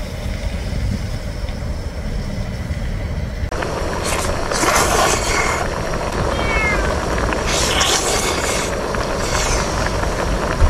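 A cat meowing several times over a steady low hum, the calls starting about four seconds in, one of them falling in pitch.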